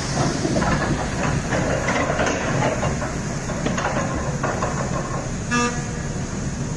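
Komatsu PC200 excavator's diesel engine running steadily, with scattered clanks and knocks from the machine at work. A short horn toot comes near the end.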